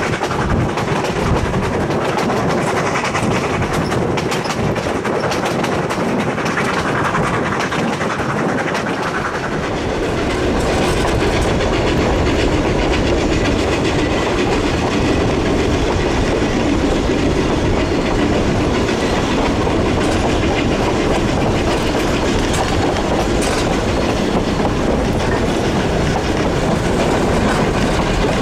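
Narrow-gauge train running, first heard from a moving wooden coach with the wheels clicking over the rail joints. About ten seconds in the sound grows louder and heavier as the steam locomotive, a Durango & Silverton K-36 2-8-2, works by hauling its train.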